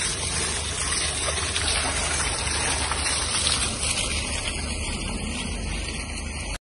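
Small ground-level fountain jets splashing, a steady rush of falling water.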